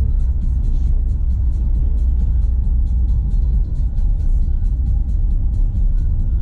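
Renault Sandero Stepway 2 driving on a dirt road: a steady low rumble of tyres and suspension, with music playing over it.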